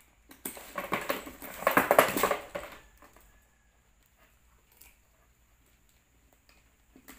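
Plastic wrapping rustling and crinkling for about two seconds as a handbag strap is dragged across it, then a few faint clicks of the strap's metal clasp.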